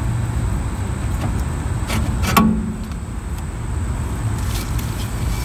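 Front brake drum of a 1963 Mercury Monterey being pulled off its spindle by hand, with two short metallic clanks about two seconds in, over a steady low background rumble.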